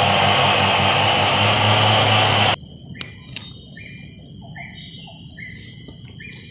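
A loud steady rushing noise with a low hum cuts off abruptly after about two and a half seconds. It gives way to forest insects whining steadily at a high pitch, with a bird giving a short call over and over, about every 0.7 s.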